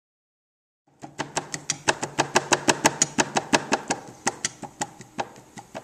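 Hands rapidly pounding a disc of soft clay flat on a potter's wheel head, about six sharp slaps a second, starting about a second in and easing off near the end, with a low hum underneath at first.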